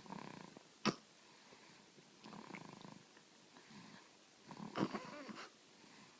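A baby snoring, deep enough to be taken for a grown man's snore: a snoring breath about every two seconds, with a sharp snort about a second in and the loudest snore about five seconds in.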